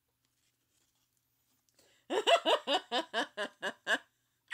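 A woman laughing in a quick run of about ten short, loud 'ha' bursts, each falling in pitch, starting about two seconds in after a silent pause.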